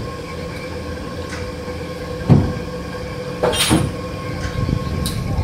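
A steady mechanical hum, like a motor running, with a few short knocks, the loudest about two seconds in and a pair around three and a half seconds in.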